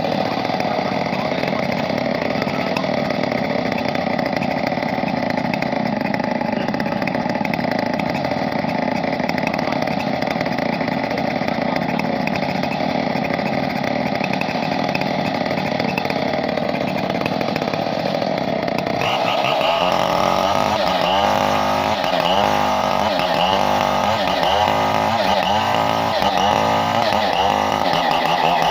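Chainsaw engine running steadily. About two-thirds of the way through it gets louder and its pitch starts swinging up and down over and over.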